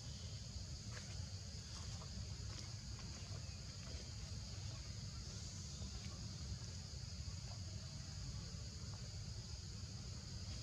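Steady high-pitched insect chorus, crickets or cicadas trilling without a break, over a low steady rumble.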